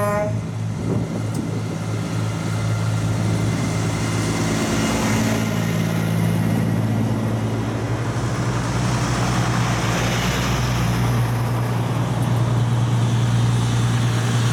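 A convoy of heavy trucks, among them an ERF prime mover, passing one after another. Their diesel engines run with a steady low drone, and road noise swells each time a truck goes by.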